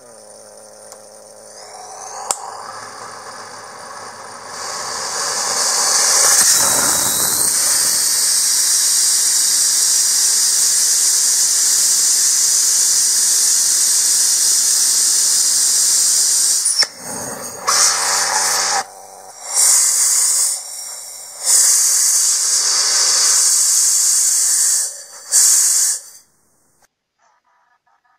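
Amateur ethanol and gaseous-oxygen rocket engine on its test stand: after a rising whistle and a sharp click about two seconds in, a loud steady hiss of rushing gas builds up and holds. Near the end it cuts out and comes back several times before stopping.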